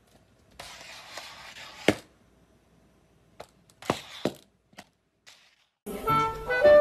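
A handful of sharp, separate knocks and thuds over faint room noise, then music starts near the end.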